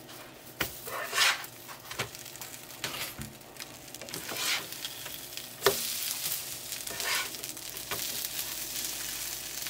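Tortillas sizzling on a hot nonstick electric griddle while a plastic slotted spatula scrapes and taps the griddle surface, sliding under and flipping quesadillas, with one sharp tap a little past halfway.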